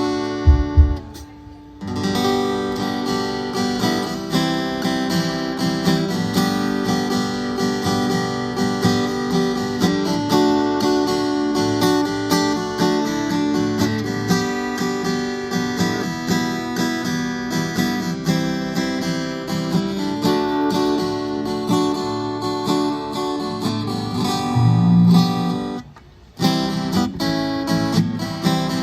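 Acoustic guitar strummed in a continuous instrumental passage, with no singing. About a second in there is a low thump and a brief break, and the playing stops again for a moment near the end.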